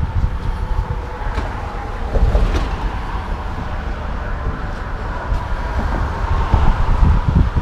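Wind buffeting the microphone in uneven gusts, over the steady sound of road traffic crossing the bridge.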